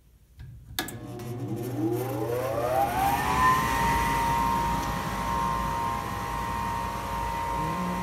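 A 2003 Goodman 80% gas furnace's draft inducer motor clicks on and spins up, its whine rising for about three seconds and then running steady. This is the first stage of the furnace's start-up sequence.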